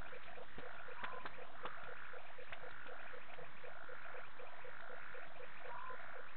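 Frog chorus: an even, rapid run of short croaks repeating several times a second, with longer, higher frog calls recurring over it every second or so. A brief whistled note sounds near the end.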